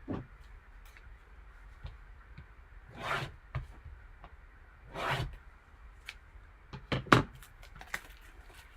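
Sealed box of baseball cards being opened by hand: two rasping scrapes of the packaging, then several sharp clicks and snaps near the end.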